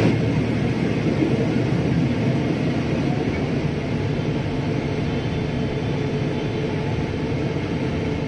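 Cabin noise of a Boeing 777-300ER beside its GE90 turbofan engine: a steady jet rumble with a faint constant hum and tone. It eases a little over the first couple of seconds.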